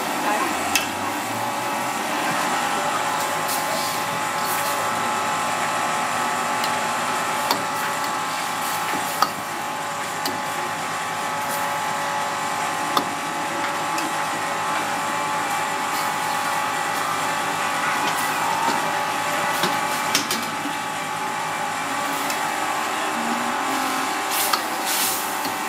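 Metal ladle stirring curry in a wok over a gas burner, knocking against the pan now and then in single sharp clicks, over a steady kitchen hum.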